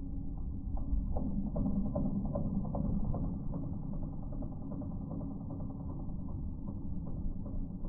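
Bobcat E10 mini excavator running a Geko stump grinder attachment: a steady low rumble with many irregular clicks and knocks, dull-sounding with no high tones.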